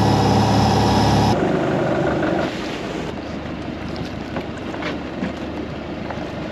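Boat engine running under power, its steady hum dropping away about a second in as it is throttled back, then falling again a little later to a quieter wash of engine and water noise with a few light knocks.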